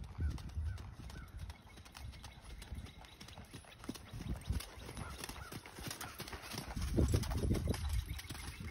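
Hoofbeats of a horse cantering on sandy arena footing, a steady run of dull thuds that grows louder about seven seconds in as the horse passes close.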